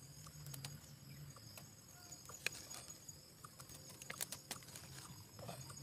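Faint scattered clicks and rustles as a thin cord is handled and tied among dry leaves and twigs, with the sharpest clicks about two and a half and four seconds in, over a steady faint low hum.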